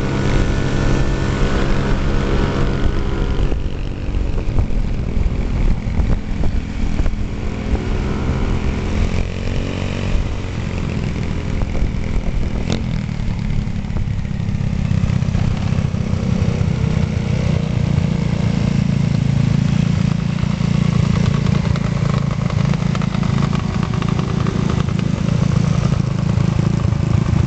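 Small Honda Ruckus scooter engines running as a group rides along, the engine pitch rising and falling as they rev. A single sharp click comes about halfway through, and near the end the scooters slow to an idle at the curb.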